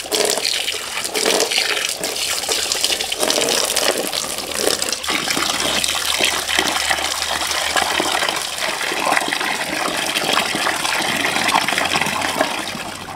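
A stream of running water splashing over raw chicken pieces as they are rinsed and rubbed by hand in a bamboo basket and a steel pot of water.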